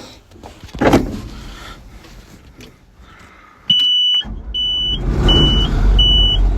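An old combine's engine cranks and catches about four seconds in, then settles into a steady low run, starting readily after sitting for about a month. A high-pitched cab warning beeper sounds about once every three-quarters of a second as the engine starts.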